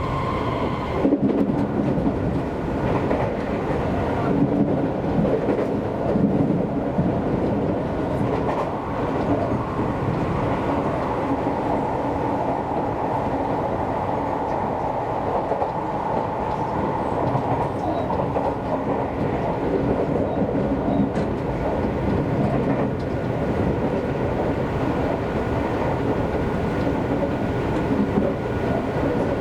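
Seibu Railway electric commuter train running between stations, heard from on board: a steady rumble of wheels on rail with occasional clacks over rail joints, and a brief whine in the first second.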